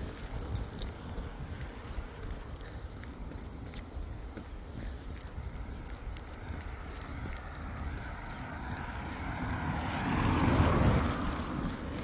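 A car passes on the wet road about ten seconds in, its tyre noise swelling and then fading. Under it are a steady low wind rumble on the microphone and light footsteps on the footpath.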